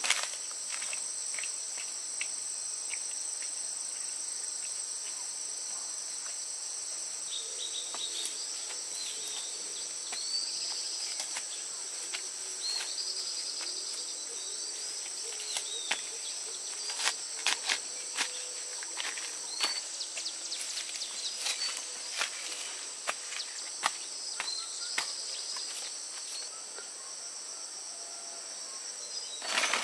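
Steady high-pitched drone of insects, with short high chirps coming in after a few seconds. Scattered sharp clicks and snaps, most of them about two thirds of the way through.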